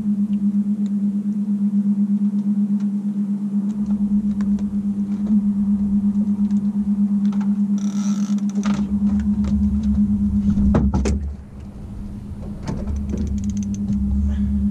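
50 hp outboard motor running steadily at low speed, a constant low hum with a regular pulse. A few clicks and rattles come through it around the middle.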